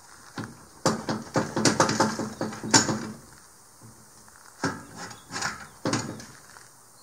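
Boat trailer's hand strap winch being worked: a quick run of metal ratchet clicks and clatter for about two seconds, then a few separate metal clicks a couple of seconds later.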